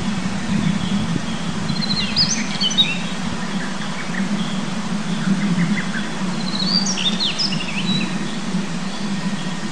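Male Daurian redstart singing: two short phrases of quick, high, scratchy chirps and twitters, about two seconds in and again about seven seconds in. Under them runs a steady low background rush.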